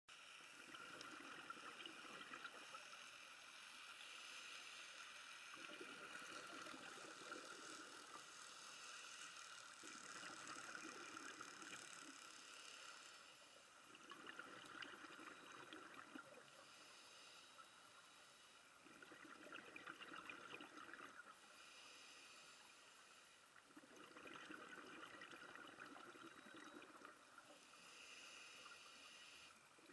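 Faint scuba breathing heard underwater: a diver's regulator and exhaled bubbles swelling and fading in a slow rhythm, about one breath every four to five seconds.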